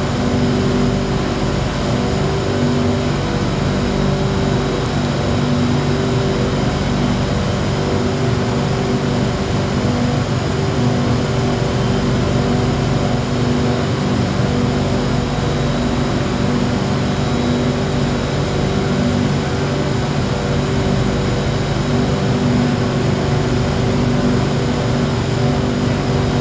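Steady machine hum of a stationary MRT train with its doors open: air-conditioning and onboard equipment running, with several steady low tones over an even hiss.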